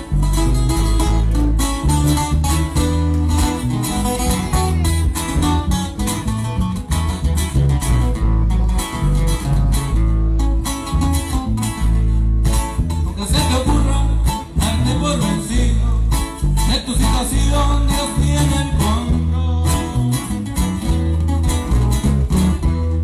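Live band music through PA speakers: electric bass, guitars and drums playing a steady upbeat song.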